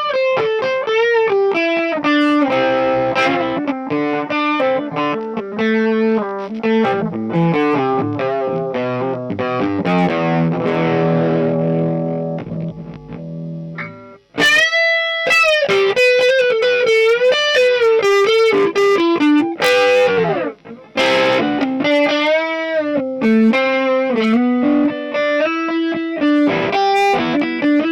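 1970s made-in-Japan Ibanez thinline electric guitar being played: picked melodic lines and chords, one chord left ringing and fading before a brief break about halfway through, then quick single-note runs with string bends.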